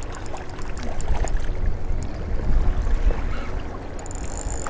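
Wind rumbling on the microphone and water washing over jetty rocks. A spinning reel ticks rapidly in the first second or so as a hooked flounder is fought, then ticks only now and then.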